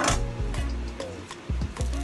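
Background music with a steady bass line, with a sharp knock near the start and a few lighter knocks as lemongrass stalks are handled and split on a wooden cutting board.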